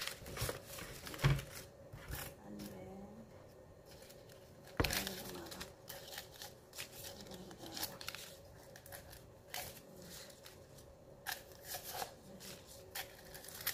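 Paper banknotes rustling and crinkling as they are pulled by hand out of a small can-shaped coin bank, with a few sharp knocks, the loudest about a second in and near five seconds in.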